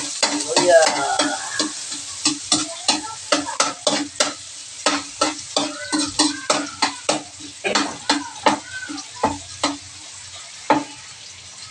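Metal ladle scraping and knocking against a steel wok in quick, repeated stirring strokes, the wok ringing briefly at each knock, over ginger sizzling in hot oil. The strokes thin out and stop near the end.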